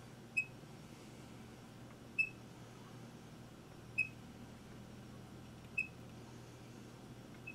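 A short, high squeak repeating very regularly, about every two seconds, over a low steady hum. It fits a hand drill turning a 1/16-inch bit into wood, squeaking once a turn.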